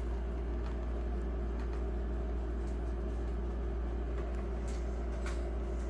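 Steady low mechanical hum, unchanging throughout, with a few faint clicks.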